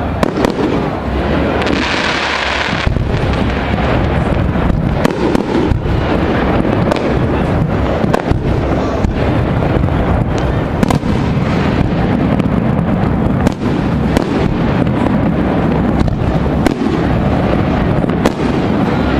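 Fireworks display: aerial shells bursting in a rapid, irregular string of bangs over a steady rumble, with a brief hiss about two seconds in.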